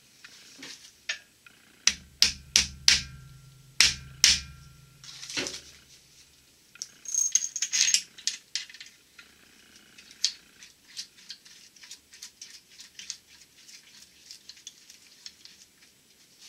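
Sharp metal knocks on the Studebaker V8's cast-iron block and rear main bearing cap: about six in quick succession starting about two seconds in, each with a brief low ring, and one more a little later. Then a short burst of metal rattling and scraping, followed by scattered light clicks from handling parts and tools.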